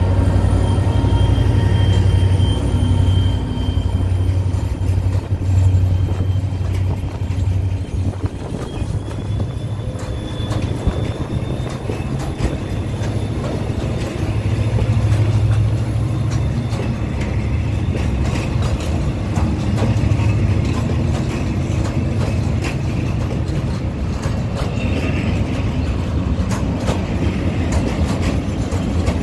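Freight train of open coal wagons moving off slowly behind a diesel locomotive powered by an EMD 645 engine. The locomotive's engine drone is loudest for the first several seconds and fades as it draws away. It gives way to the wagons rolling past, with wheels clicking over rail joints and thin, high wheel squeals.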